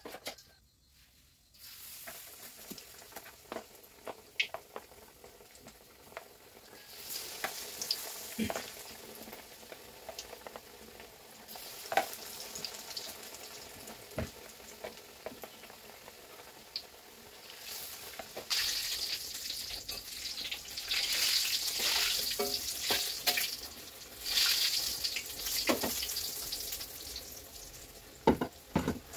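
Tofu frying in hot oil in a wok, a steady sizzle that swells louder about two-thirds of the way through. Scattered sharp clicks and knocks are heard throughout.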